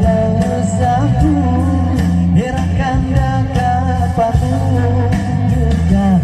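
A singer performing a song live with amplified backing music played through a stage PA system.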